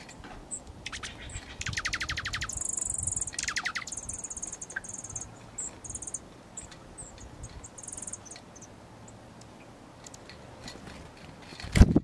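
Small songbirds at a backyard seed feeder calling: a fast, dry trill about a second in, then short, thin, high chirps. A sudden loud knock comes near the end.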